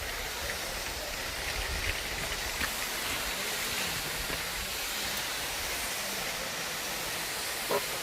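Steady rushing of falling water, an even, unbroken hiss with a brief faint knock near the end.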